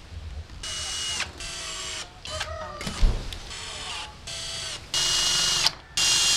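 Cordless drill run into a plywood block in several short bursts of a second or so, its motor whine dropping in pitch as some bursts end. A sharp knock about three seconds in.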